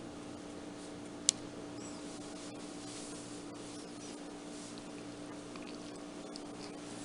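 Faint scratching of a pointed fondant tool scoring lines into rolled-out fondant on a wooden board, over a steady low hum, with one sharp click about a second in.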